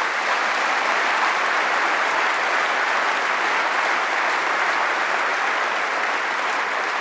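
Conference hall audience applauding: sustained, steady clapping from a large crowd.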